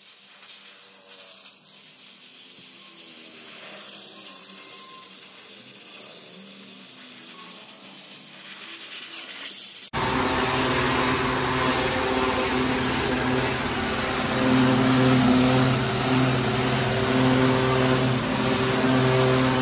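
Steam cleaner jet hissing against a car's fuel filler recess. About ten seconds in it changes to a louder electric pressure washer: the motor and pump hum steadily while the water jet sprays a wheel arch and tyre.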